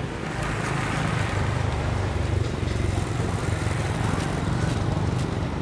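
Motor vehicle engine running steadily, a continuous low drone.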